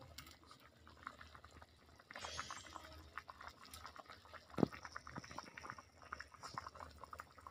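Thin chicken and potato curry bubbling in a pot over the fire in its last minutes of cooking: faint, irregular popping and ticking, with one louder click about four and a half seconds in.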